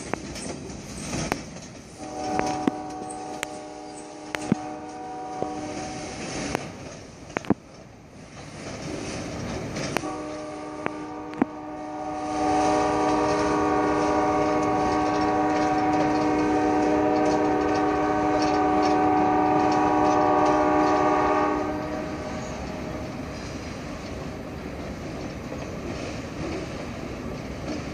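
Freight train's diesel locomotive horn sounding two long blasts, the first about four seconds long, the second about eleven seconds long and louder, while the passing cars' wheels click over the rail joints.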